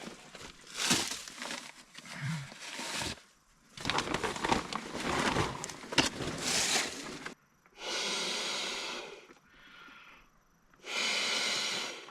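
Rustling and scraping of material being handled in the first half, then two long, even breathy hisses close to the microphone, about eight and eleven seconds in.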